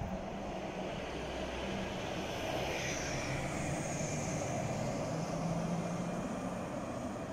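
Bus driving along the road, its engine and tyres making a steady rumble that grows louder as it comes closer, with a faint drifting whine, then cutting off suddenly.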